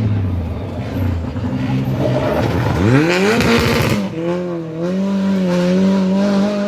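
Rally car engine at full throttle. About three seconds in, the revs climb steeply, then drop briefly around four seconds in, as on a gear change. After that the engine holds a steady, slightly wavering note.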